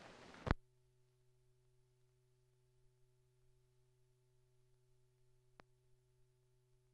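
Near silence on an old film soundtrack: a faint steady hum with a few thin tones above it, after the sound cuts off with a click about half a second in. A tiny click comes near the end.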